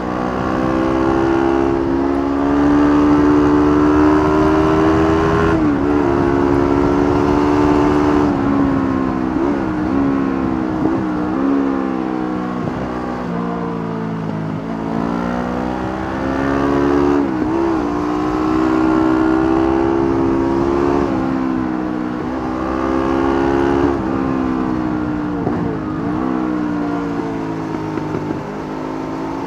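Honda CB500 parallel-twin engine running under way, heard onboard. The revs climb and fall repeatedly, with the pitch dropping quickly several times as the rider rolls off or shifts.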